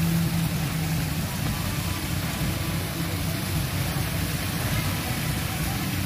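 Suzuki Jimny's engine idling steadily while the jeep stands in a river crossing, with an even rush of flowing water around it.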